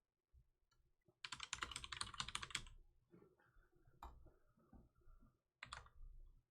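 Typing on a computer keyboard: a quick run of keystrokes from about one to three seconds in, then a few scattered key presses and a short flurry near the end.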